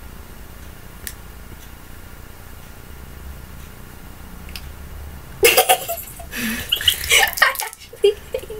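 Low room hum with a few faint clicks, then about five seconds in two boys break into loud laughter for a couple of seconds.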